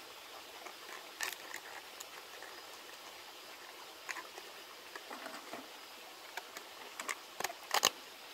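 Plastic bottles being handled and fitted together: scattered light clicks, crinkles and knocks of thin plastic, the loudest cluster near the end, over the faint steady wash of the stream.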